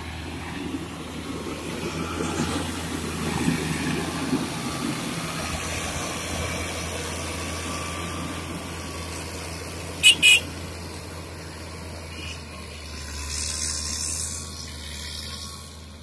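Diesel engine of a Caterpillar 120K2 motor grader running steadily under load as it grades dirt, with the blade scraping soil early on. Two sharp clicks close together about ten seconds in.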